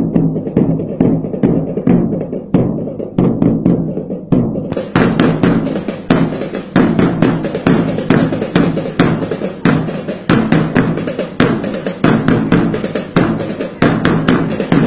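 Kalinga gangsa flat-gong ensemble playing a fast, even beat of about three strokes a second, the gongs ringing low between strokes, as dance accompaniment.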